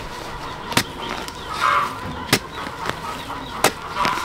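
Three sharp tool strikes, evenly spaced about a second and a half apart, with birds calling between them.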